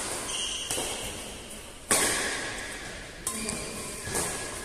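Badminton rackets striking a shuttlecock during a rally. There are three sharp strikes about a second and a half apart and a fainter fourth near the end, each ringing briefly in a large hall.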